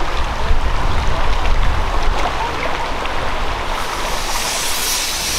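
Steady rushing noise with a low rumble underneath. About four seconds in, a high hiss of steam from a miniature 10¼-inch-gauge steam locomotive joins in.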